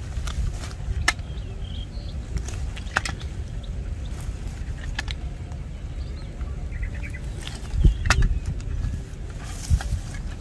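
Bamboo tube frog traps and a mesh net bag being handled in grass: scattered light clicks and knocks with rustling, the loudest knock about eight seconds in, over a steady low rumble.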